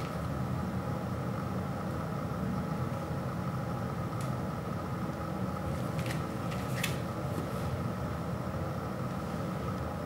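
A steady, low mechanical hum, with a few brief crinkles of the plastic shrink-wrap on a vinyl LP sleeve as it is handled, near the middle and again a couple of seconds later.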